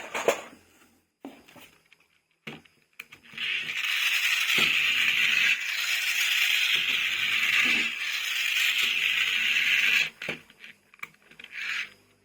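Toys and their packaging being handled: a few sharp clicks and knocks, then about six seconds of steady rustling or scraping noise that stops suddenly, followed by more light clicks.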